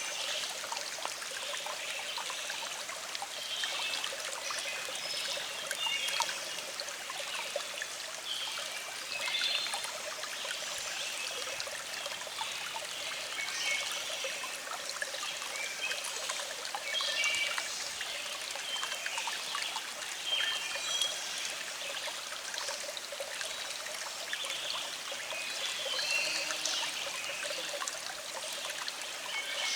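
A small stream flowing and trickling steadily, with birds singing short chirping phrases throughout.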